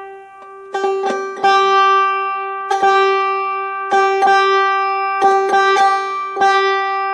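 The open fifth string of a five-string banjo is plucked with a guitar pick about ten times, each time at the same pitch and left ringing. Under each note is an unwanted funky noise that comes from where the string leaves its nut, which the player thinks is the tiny fifth-string nut slot being too narrow for the string.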